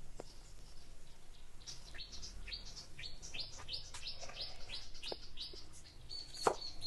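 Small birds chirping: a quick series of high chirps, each dropping in pitch, about two or three a second, then a thin, steady high-pitched trill near the end. A sharp knock sounds about six and a half seconds in.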